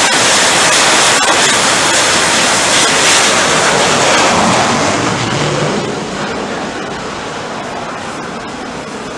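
F/A-18 Hornet jet engine noise, a loud steady rush that eases off over the second half as the jet draws away.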